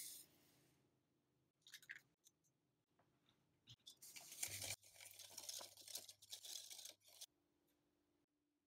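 Caster sugar pouring into a mixing bowl with a brief hiss, then a wire whisk beating egg and sugar in the bowl: rapid scraping and rattling against the bowl for about three seconds, starting about four seconds in.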